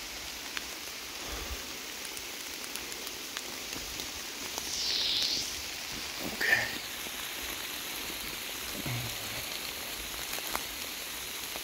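Pouring rain falling steadily, a dense even hiss of drops, with a brief louder swish about five seconds in.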